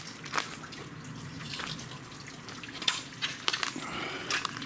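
A small waterfall with little water in it, splashing and trickling onto rock in a steady wash, with scattered sharp clicks and splashes.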